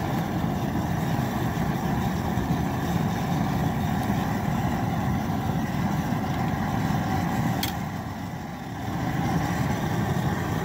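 Propane boil burner running under a large pot of boiling water: a steady rushing noise that dips briefly about eight seconds in, with one short click just before the dip.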